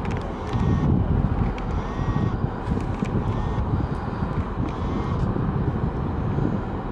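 Low, steady rumble of a fast catamaran ferry's engines as it pulls out of the harbour, mixed with wind buffeting the microphone.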